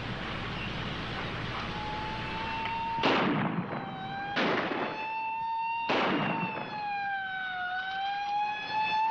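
Three gunshots about a second and a half apart, each a sharp crack that trails off in a short echo, over a siren wailing in slow rises and falls from about two seconds in.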